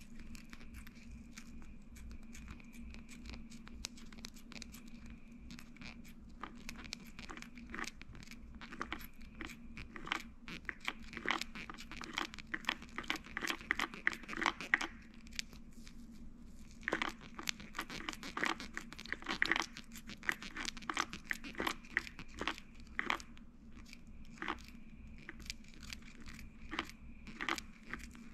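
Fingers wrapping thread on a small jig hook and handling crinkly tying materials close to the microphone: a run of small clicks and crackles that grows busy in the middle, with a brief lull, over a steady background hum.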